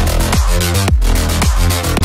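Background electronic dance music with a steady beat: heavy bass and kick drum hits about twice a second.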